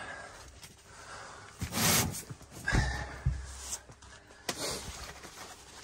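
Handling of a cardboard parcel: a short hiss about two seconds in, then a dull thump and a few light clicks.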